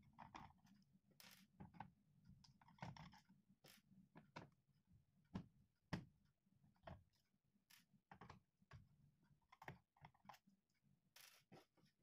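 Faint, irregular small clicks and taps: a screwdriver working the bottom-cover screws of an ASUS K401LB laptop, and the small screws being set down on a wooden table.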